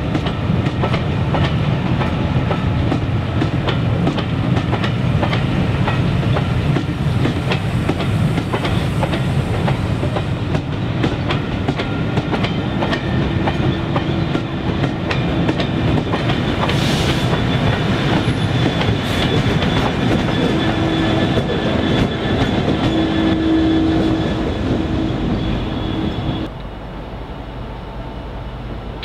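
Passenger coaches of a slow-moving train rolling over pointwork, wheels clicking rapidly over rail joints. From about halfway a steady diesel engine drone joins in as the propelling Class 66 locomotive draws near. Near the end the sound drops suddenly to a quieter distant rumble.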